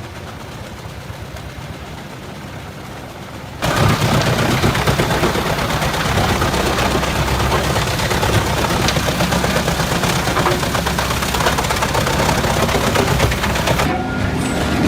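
Large industrial wood chipper shredding logs: a quieter steady rumble, then a sudden loud, dense rapid crackling and snapping of wood being chewed up over the engine drone.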